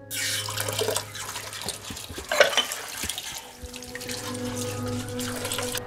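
Water running and splashing, with a low steady hum underneath; a steady tone joins about halfway through.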